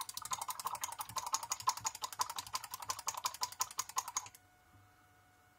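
A rapid run of even, sharp clicks, about ten a second, that stops suddenly a little past four seconds in.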